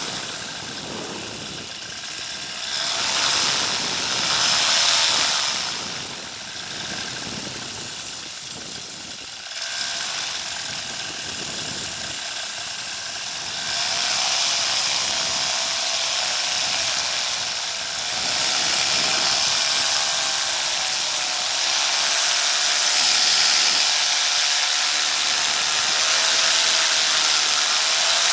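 Paramotor engine running with wind rushing over the microphone, its level rising and falling several times as the throttle changes, and a wavering engine note in the second half.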